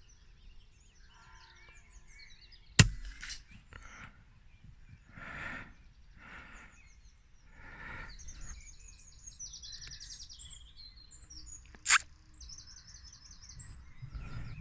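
Two sharp shots from an FX Impact .25 PCP air rifle, about nine seconds apart, the first the louder. Birds chirp and trill in the background, and there are a few soft rushing sounds in between.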